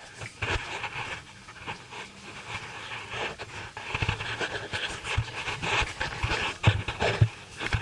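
Handling noise on a carried camera's microphone: irregular rustling and scraping with dull bumps as its holder walks, loudest in the second half with a few sharp knocks.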